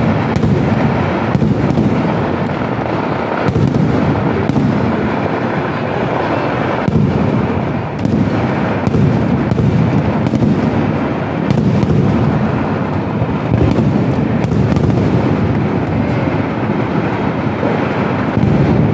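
Kerala temple-festival fireworks (vedikettu) going off in a continuous rapid barrage. Heavy bangs and sharp cracks overlap with hardly a pause, as aerial shells burst overhead and charges go off at ground level.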